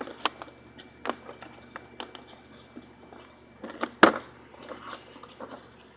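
Small hand tools being handled, giving scattered light clicks and knocks, with one sharper knock about four seconds in.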